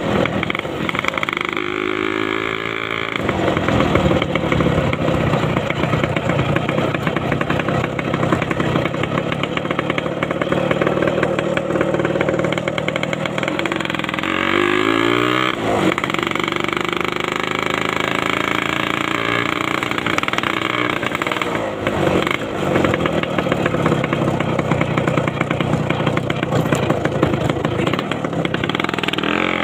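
Yamaha RX-King two-stroke single-cylinder motorcycle engine running hard under way. Its pitch climbs sharply a couple of seconds in, again about halfway through and near the end, and drops away suddenly at each gear change.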